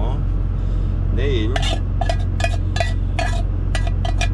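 Metal spoon clinking and scraping against a cooking pot in a quick run of sharp, ringing taps, about four a second, starting about a second and a half in, as leftovers are scooped out. A steady low engine hum sits underneath.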